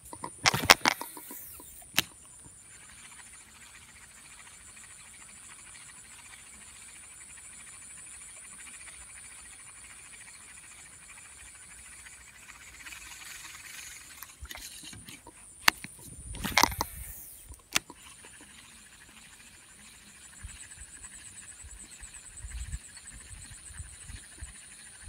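Quiet wetland ambience with a steady high-pitched hiss throughout. A few sharp clicks and knocks of handling come near the start, and a louder cluster of them about two-thirds through.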